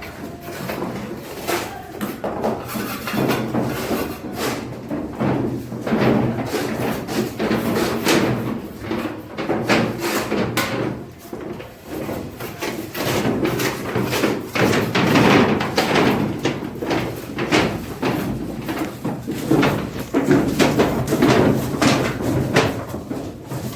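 Irregular knocks, bangs and clatter of manual work on a house construction site, with many short impacts in quick succession.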